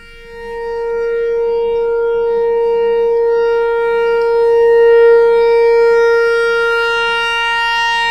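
Rotating outdoor tornado siren sounding a loud, steady single tone. It swells up over the first second as the horn comes around toward the listener, peaks about five seconds in, then eases slightly.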